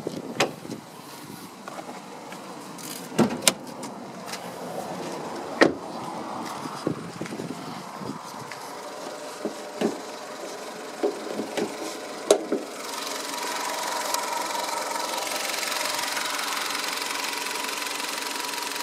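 Sharp clicks and knocks of a small car's door and bonnet being worked, then, about 13 seconds in, the Chevrolet S-TEC II 16-valve four-cylinder engine running steadily at idle with a steady whine.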